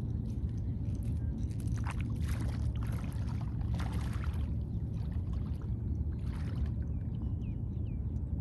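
Footsteps wading into shallow seawater, sloshing and splashing in uneven strides, strongest in the first half, over a steady low rumble.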